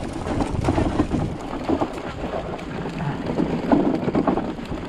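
Wind buffeting the microphone, with a rapid run of irregular knocks and rattles as an electric chopper scooter jolts over a rough, rutted dirt track.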